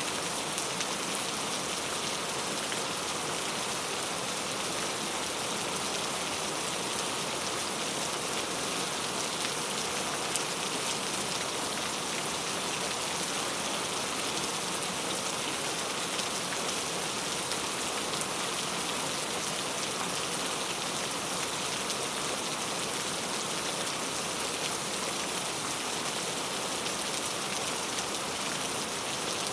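Steady rain falling and pattering on a surface, an even hiss with a few faint drop ticks.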